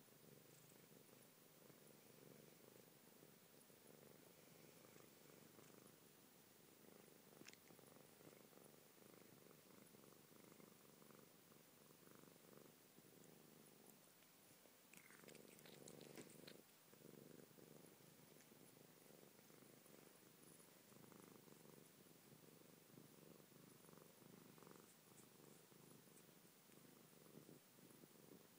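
British Shorthair cat purring steadily and faintly, with a brief louder noise about halfway through.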